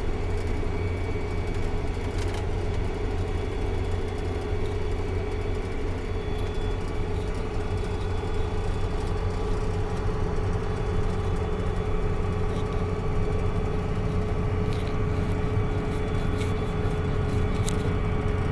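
Tractor engine running steadily while towing land rollers: a constant low drone with a steady whine above it.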